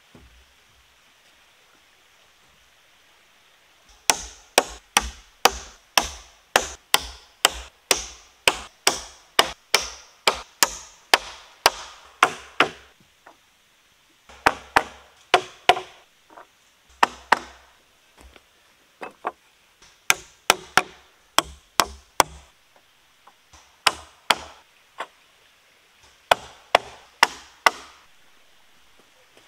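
Hammer driving nails into a sawn-timber floor frame: runs of sharp blows, about two to three a second, starting about four seconds in and broken by short pauses.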